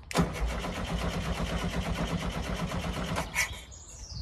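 Starter motor cranking the 1641cc air-cooled flat-four of a 1970 VW Type 2 in a steady rhythmic chug, without the engine catching. It stops abruptly a little over three seconds in with a clunk. The owners put the failure to start down to fuel not getting up into the carburettor's float bowl.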